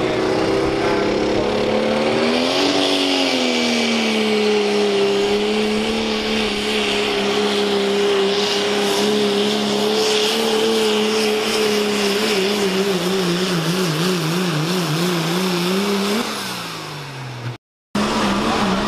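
Diesel engine of a Dodge Ram pickup pulling truck at full throttle dragging a weight sled: the engine note climbs as it launches, then holds steady, and from about two-thirds of the way through its pitch wavers up and down rapidly, before a last brief rise and a fall as it is let off. After a sudden cut, another diesel pickup pulling truck is heard running hard at a steady pitch.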